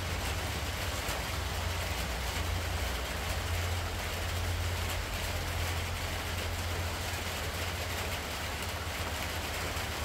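Steady low hum under an even hiss of outdoor background noise, with no distinct events.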